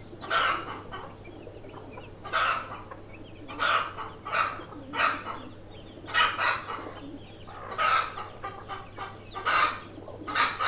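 Chickens calling: loud, short calls, often two close together, repeated every second or so over a steady high-pitched hiss.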